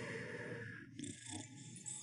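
Cartoon snoring sound effect: noisy, drawn-out breaths, one giving way to the next about a second in.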